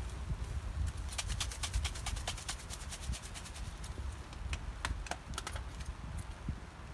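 Campfire crackling: a run of sharp pops and clicks, thick for a couple of seconds about a second in and then scattered, over a steady low rumble.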